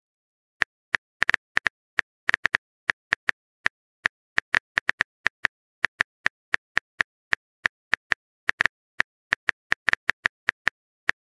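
Smartphone keyboard tap sounds, one identical click per letter as a message is typed, in an uneven typing rhythm of about four a second.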